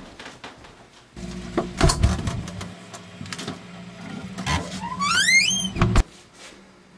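Refrigerator door opened and, about five seconds later, knocked shut, with aluminium cans clinking and a steady hum while it stands open. Just before the door shuts there is a rising squeak.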